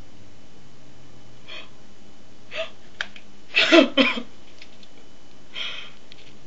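A person's short breathy vocal sounds: a few quick breaths or huffs, and a louder gasp-like outburst about three and a half seconds in, with a small click just before it.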